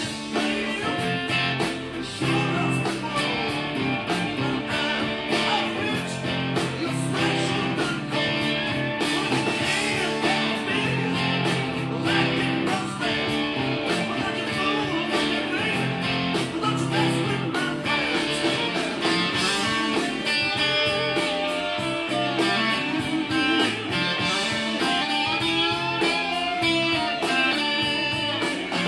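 Blues-rock lead electric guitar played on a Gibson Les Paul Standard over a full band backing, the guitar line full of string bends.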